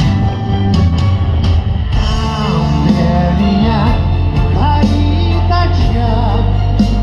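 Live rock-pop concert heard from the crowd: a male singer over a band with drums, the voice coming in about two seconds in.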